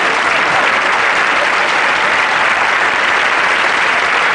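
Studio audience applauding steadily, a dense, even clatter of many hands clapping.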